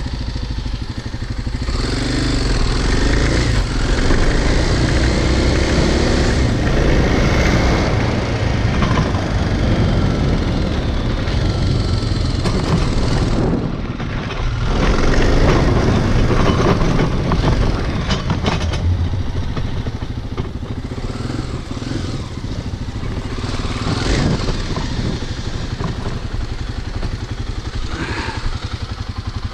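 Kawasaki dirt bike engine running as the bike is ridden, its pitch rising and falling with the throttle.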